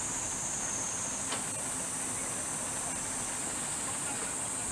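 Steady, shrill chorus of cicadas over the low, distant running of excavators and a dump truck working debris piles, with a faint knock about a second in.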